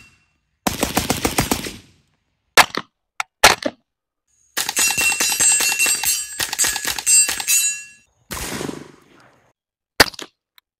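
Suppressed AR-15 rifles firing: a fast string of shots about a second in, two single shots, then a longer run of rapid fire with a ringing tone over it. A single suppressed pistol shot near the end.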